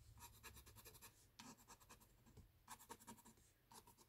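Faint scratching of a lottery scratch ticket's coating with a handheld scratcher, in several short bursts of quick strokes.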